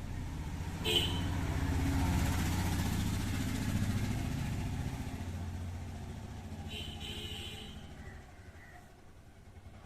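A motor vehicle's engine passing by, growing louder over the first few seconds and then fading away, with a short click about a second in.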